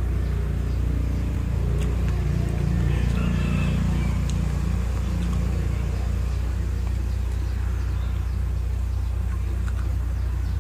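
Steady low rumble of a running motor, with a humming tone that swells over the first few seconds and a few faint clicks.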